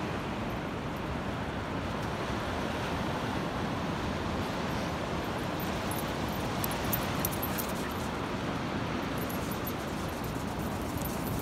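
Steady wind buffeting the microphone, with surf from the sea behind it.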